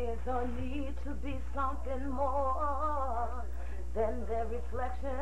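A voice singing held notes with a wavering vibrato, over a steady low hum.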